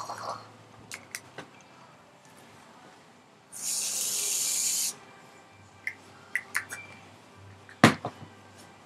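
An aerosol can of Land O Lakes whipped cream sprays once, a steady hiss lasting about a second and a half. Light clicks and taps come before and after it, and a sharper click near the end is the loudest sound.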